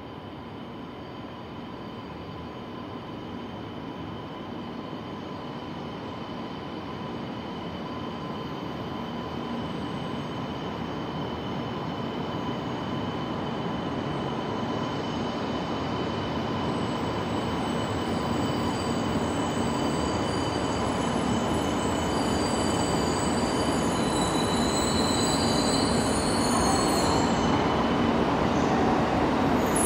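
E2 series Shinkansen train approaching the platform to stop, its running noise growing steadily louder throughout, with thin steady high-pitched whining tones over it and a higher squeal joining in near the end.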